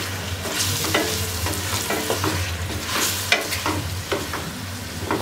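Raw chicken pieces sizzling in hot ghee in an aluminium pot while a wooden spatula stirs them, scraping and knocking against the pot every second or so. The chicken is at the searing stage, fried until the meat turns white.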